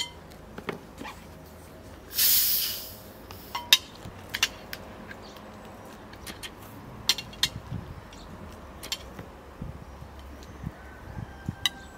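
Hiss of gas rushing out as the cap of a plastic bottle of carbonated drink is twisted open, lasting under a second about two seconds in, followed by a sharp click. Scattered light clinks of cutlery on plates.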